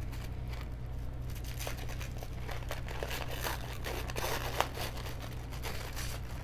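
Paper wrapping crinkling and rustling as it is unrolled and peeled off a hand-rolled spell candle, with a sharper crackle about four and a half seconds in.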